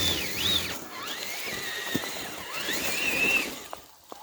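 Electric motor and gear whine of RC crawler trucks, rising and falling in pitch with the throttle, fading out near the end.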